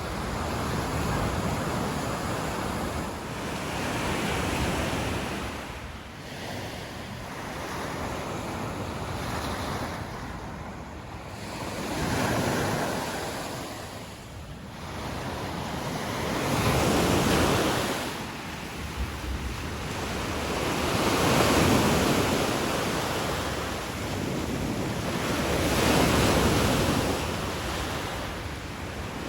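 Lake Michigan waves breaking and washing up the beach, the surf noise swelling and easing every four to five seconds as each wave comes in.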